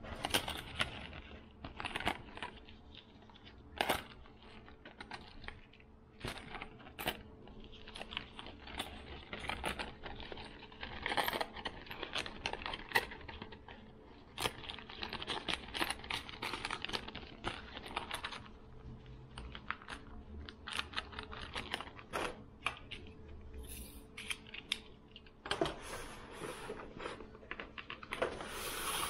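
Handling noises: an irregular run of light clicks, taps and rattles of small hard items being moved about.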